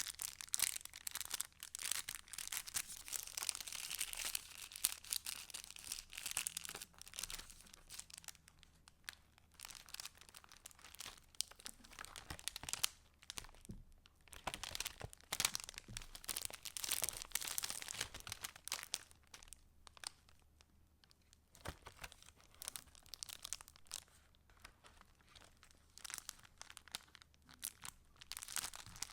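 Paper pages and paper scraps of a handmade junk journal rustling and crinkling as they are handled and turned, in irregular bursts with a few brief lulls.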